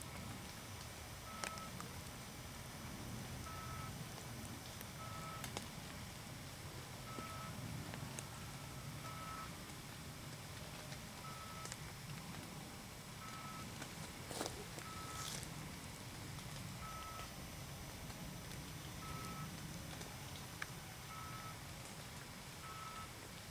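A short beep at one steady, fairly high pitch, repeating about every two seconds at slightly uneven spacing, over a steady low rumble, with a few faint ticks, the strongest about halfway through.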